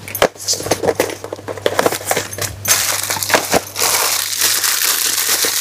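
Plastic packaging crinkling and rustling as packets of bras are handled and pulled out of a cardboard box, with many short clicks and taps.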